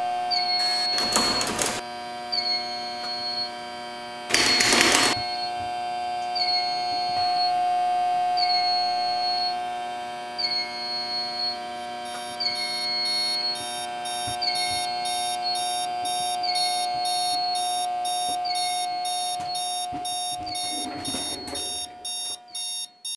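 Electronic film sound design: a steady high hum under a short beep that repeats about once a second, with two loud bursts of noise early on. About halfway through a fast pulsing starts, speeds up near the end and then cuts off suddenly.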